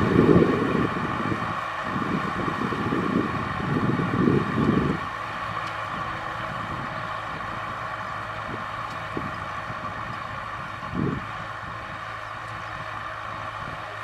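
Kubota M6040SU tractor's diesel engine running steadily under load while pulling a disc plough through dry soil. Wind buffets the microphone with a low rumble through the first five seconds.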